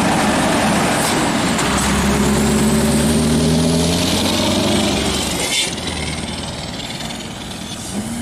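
Scania R580's V8 diesel engine running steadily with a deep rumble, loud at first and fading after about five and a half seconds.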